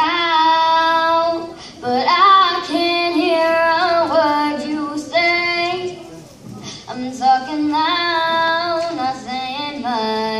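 A young girl singing solo into a microphone, in phrases of long held notes that slide between pitches, with short breaths between phrases.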